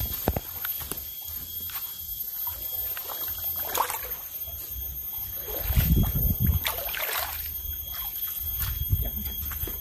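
River water sloshing and splashing around people's legs as they wade slowly through waist-deep water, with louder sloshes about six seconds in and again near nine seconds.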